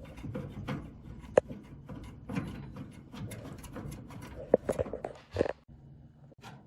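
Scattered sharp clicks and light knocks of a screwdriver, screw and small parts against the dryer's metal cabinet during repair work, with a cluster of them a little past the middle.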